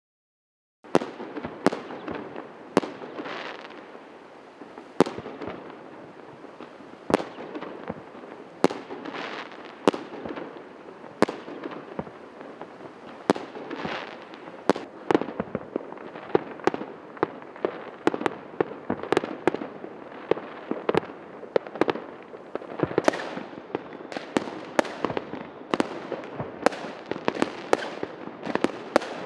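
Many fireworks and firecrackers going off at once: sharp bangs at irregular intervals over a continuous background of distant pops and crackle. The bangs start about a second in and come thicker near the end.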